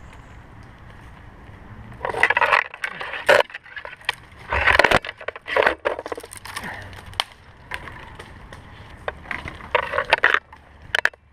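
Twigs and branches rustling and cracking and bark scraping as a climber grabs and hauls himself up through a tree, in irregular bursts with a few sharp snaps.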